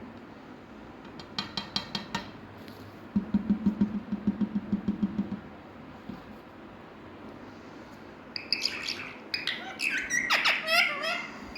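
Indian ringneck parakeet calling: a short run of rapid chatter about a second in, then a low, rapid pulsing sound for about two seconds, and near the end a burst of loud, shrill squawks and gliding chattering calls.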